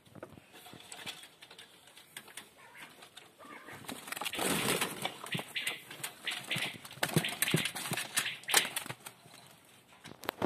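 Chukar partridges in a wire-mesh pen, moving about and making short calls. A burst of rustling comes about four seconds in, then a run of sharp clicks and knocks in the second half.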